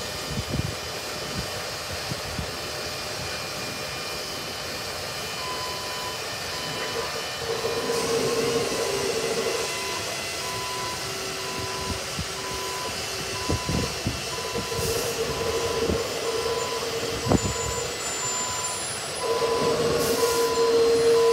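Highrail railcar-mover truck shoving a hopper car while backing: its reversing alarm beeps steadily, about two beeps a second, starting about six seconds in. A steady drone from the truck comes and goes, growing louder near the end.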